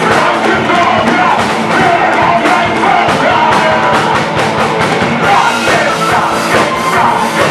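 Punk rock band playing live and loud: electric guitars, bass guitar and drum kit keeping a steady beat.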